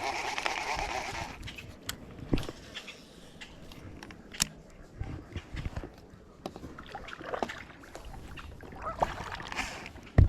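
Water splashing beside a fishing kayak for about the first second and a half, then scattered knocks and clicks of gear being handled on the kayak, with one sharp knock near the end.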